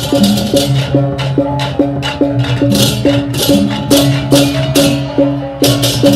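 Balinese baleganjur gamelan playing: cengceng cymbals crashing in a fast, steady rhythm over an interlocking two-note gong-chime figure and low gong tones.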